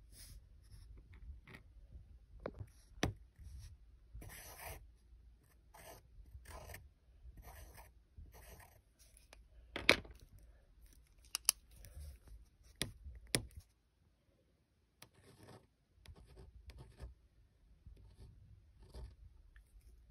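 Pen scratching on paper in short, irregular strokes as lines are drawn, with a few sharp taps in the middle and a brief silent break about two-thirds through.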